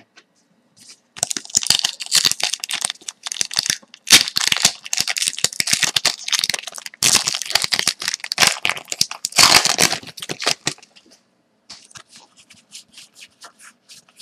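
A trading card pack's wrapper being torn open and crinkled for about ten seconds. Near the end come fainter quick ticks as the cards are slid apart and fanned.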